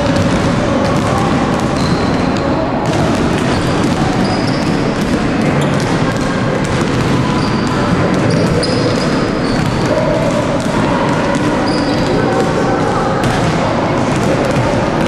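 Many basketballs bouncing on a wooden sports-hall floor, a continuous jumble of knocks, with children's voices in the background.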